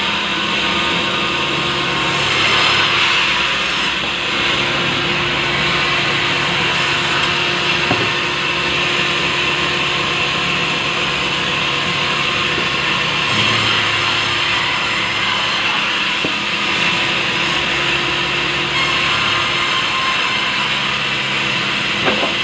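Sawmill band saw running steadily as it rips lengthwise through a large log of soft wood, a continuous loud rasp of the blade in the timber.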